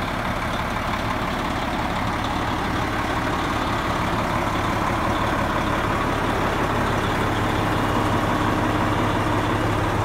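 Detroit diesel engine of a 1999 Oshkosh 4x4 dump truck idling steadily, a low, even hum.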